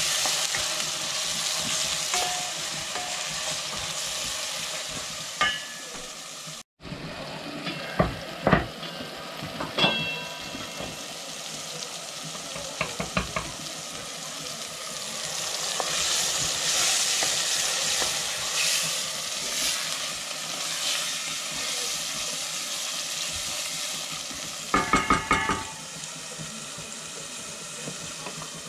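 Food sizzling as it fries in a pan, with sharp knocks and clinks of a utensil against the pan, a cluster of them near the end. The sound cuts out completely for a moment about seven seconds in.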